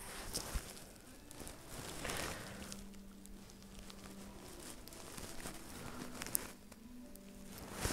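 Faint rustling and handling noise from a phone being carried and moved by hand, with a few soft clicks, over a faint steady hum.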